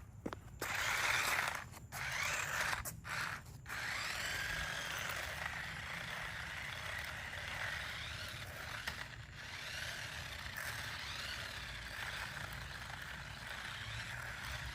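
Electric drive motors and plastic gearboxes of a toy double-sided RC stunt car whirring as it drives. The motors stop and start several times in the first few seconds, then run on steadily with a whine that rises and falls in pitch.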